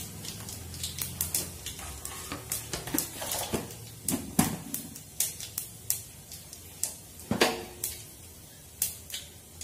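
Mustard seeds spluttering in hot oil in a stainless steel pan, along with added lentils and cumin: scattered sharp pops and crackles at irregular intervals.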